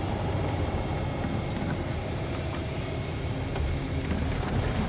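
Low, steady rumble of a car's engine and road noise heard from inside the cabin as it moves slowly.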